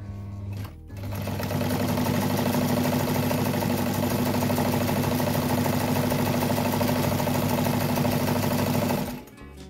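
Vintage Necchi zigzag sewing machine, electric-motor driven, sewing a zigzag seam: a brief hum at the start, then from about a second in a steady run of motor hum and rapid needle clatter that stops shortly before the end.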